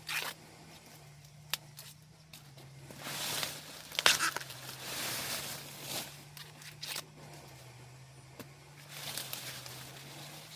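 Corn plants being handled: rustling and crackling of leaves and husks, with a few sharp snaps, the loudest about four seconds in.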